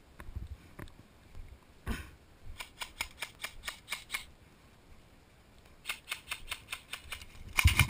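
Airsoft guns firing: two quick runs of sharp snaps at about five a second, one starting about two and a half seconds in and another about six seconds in, with a louder burst near the end.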